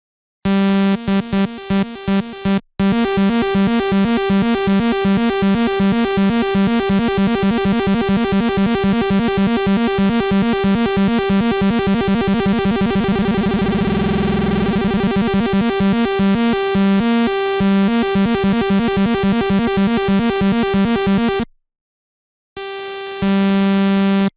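Saw-wave synthesizer arpeggio from FL Studio's 3xOsc, its arpeggiator set to 'up', cycling through a held chord as rapid repeated notes. The notes get much faster towards the middle as the time dial is turned, then slow again, and stop about three seconds before the end. A single sustained saw note follows near the end.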